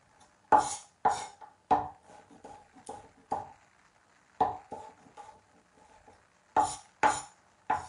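Wide-bladed kitchen knife dicing tomato on a bamboo chopping board: about ten sharp chops at an uneven pace, with a short lull in the middle.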